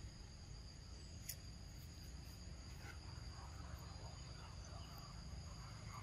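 Steady high-pitched insect chorus, two even tones held without a break, with a single faint click a little over a second in.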